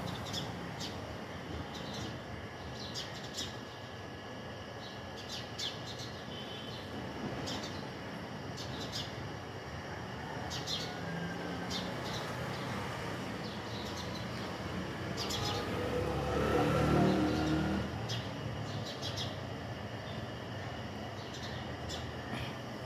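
Small birds chirping in short, scattered calls over a steady outdoor background hum. About two-thirds of the way through, a louder low rumble swells and fades.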